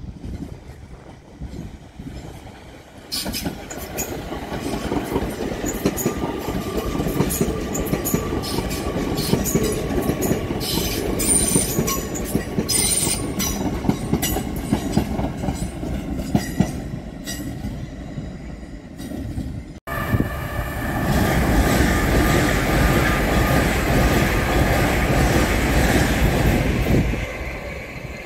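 Hull Trains Class 802 high-speed train passing close by: wheels clattering over rail joints under a steady whine, with a brief high squeal about halfway through. After a cut, a second loud train rumble, an LNER Azuma at the platform.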